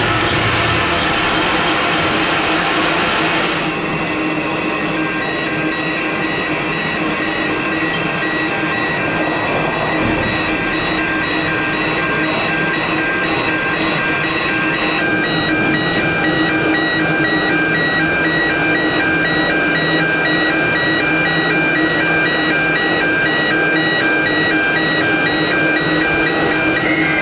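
Narrow-gauge steam train running on the line: a steady rolling noise with high, evenly pulsing tones over it.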